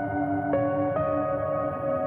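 Ambient music of long, overlapping held notes, with a new note entering about half a second in and another about a second in.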